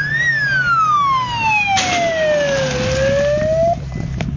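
Siren on a rally zero course car wailing, its pitch rising, falling slowly, then rising again before cutting off suddenly, over the car's engine and a rush of road noise as it passes. The siren warns spectators that the stage is about to go live.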